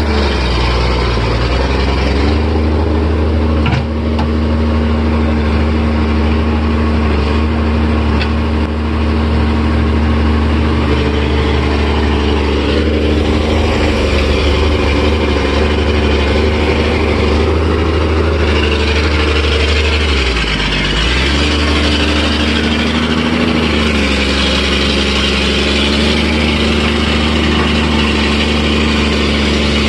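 Komatsu crawler excavator's diesel engine running loud and steady under load as the machine tracks along, with a brief dip in engine pitch about twenty seconds in. The uploader likens the engine's sound to an aeroplane.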